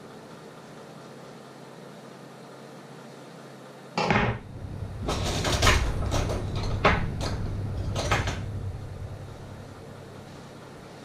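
Kitchen clatter over a steady low hum: a sudden knock about four seconds in, then a run of clacks and rattles of kitchenware for about four seconds.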